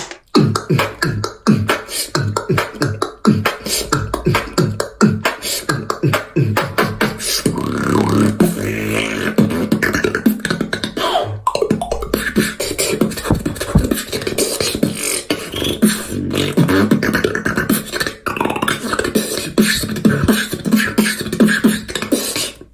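Solo human beatboxing: a steady rhythm of mouth-made kick drums, snares and hi-hat clicks, joined about a third of the way in by a held bass note that runs under the percussion.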